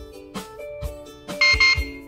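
Background music with a steady beat. About one and a half seconds in, two short, loud, high-pitched beeps from the Kerui J009 wireless siren, answering a press of its remote.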